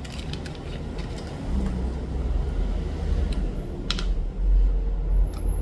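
Light clicks and taps from small parts and tools being handled on a workbench, with one sharper click about four seconds in, over a low rumble.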